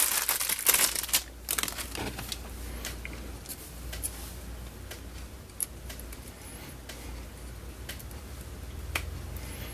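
A clear plastic bag crinkling for about the first second, then quiet handling of a small alligator-clip probe adapter, with a few scattered light clicks and taps as it is fitted onto a multimeter's probe tip.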